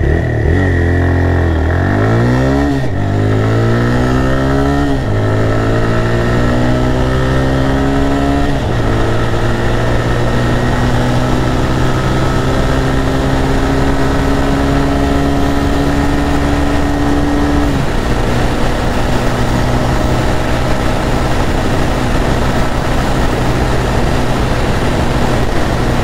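TVS Raider 125's single-cylinder engine accelerating hard in Eco mode, revving up through the gears with four upshifts, each a sudden drop in pitch followed by another rise. Wind noise grows as speed builds. In top gear the pitch climbs only slowly near 90 km/h, and the rider takes this for the engine being held back above about 92 km/h.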